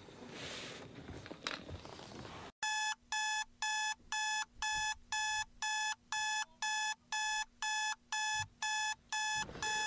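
Digital alarm clock beeping steadily, about two beeps a second, starting a little over two seconds in and stopping just before the end.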